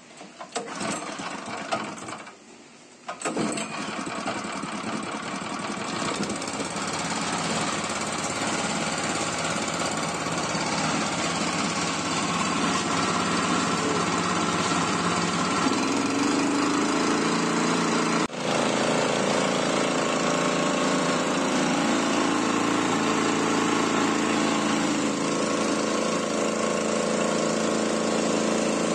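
Small four-stroke petrol engine of a KisanKraft power sprayer being started. There are a few uneven bursts, and it catches about three seconds in. It then runs steadily, driving the belt-driven piston spray pump.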